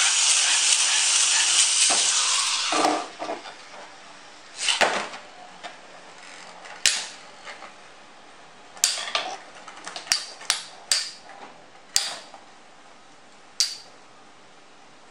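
Two metal battle spinning tops, a Blast Top and a Tam Bảo top, just launched into a plastic stadium: a loud whirring hiss for the first three seconds or so, then a series of sharp metallic clacks a second or so apart as the tops collide.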